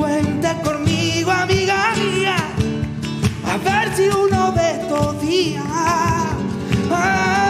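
Live flamenco rumba: a man sings a long, ornamented, sliding vocal line over two Spanish guitars, with hand-clapping and cajón marking the beat in sharp strokes.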